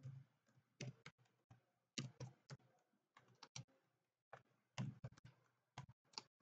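Faint typing on a computer keyboard: irregularly spaced keystroke clicks as a line of text is entered.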